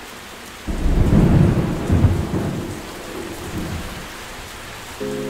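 Steady rain with a sudden rumble of thunder under a second in, which fades away over about three seconds.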